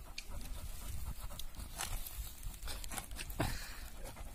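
A dog digging and nosing into dry grass and earth: scratching and rustling in short, irregular scrapes and crackles.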